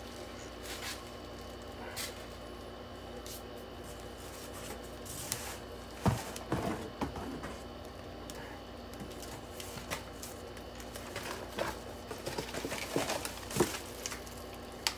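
Unboxing handling noise: plastic packaging crinkling and cardboard rustling as a gumball machine is taken out of its box, with scattered knocks and clicks. The loudest knock comes about six seconds in, and a couple more come near the end.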